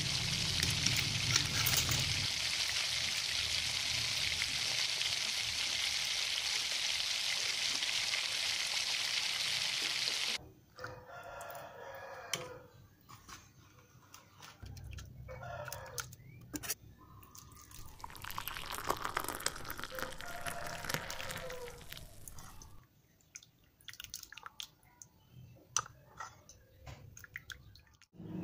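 A steady hiss that cuts off suddenly about ten seconds in. After it comes a quieter stretch of light clicks and knocks from a plastic spoon in a bowl, while a rooster crows twice.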